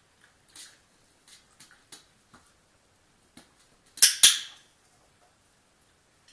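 Faint light ticks of a dog's paws and claws shifting on a steel bowl, then, about four seconds in, a loud, sharp double click, the press-and-release of a dog-training clicker marking the behaviour.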